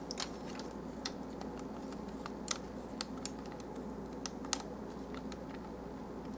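Irregular light plastic clicks and taps from a Transformers Voyager Class Long Haul action figure being handled, its leg and knee joint flexed by hand. The two sharpest clicks come about two and a half and four and a half seconds in.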